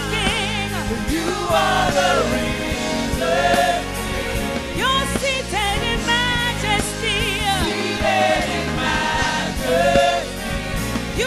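Gospel praise and worship singing: voices with strong vibrato, some held and some gliding, over sustained low accompaniment.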